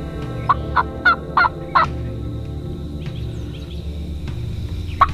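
Osceola wild turkey gobbling: a quick run of five loud notes lasting about a second and a half, then two more sharp notes near the end.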